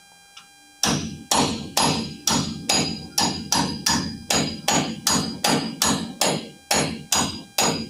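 Hammer tapping a chisel wedged at the edge of a chrome rear-axle differential cover to break its old sealant loose. The strikes begin about a second in and come steadily at about two and a half a second, each with a short metallic ring.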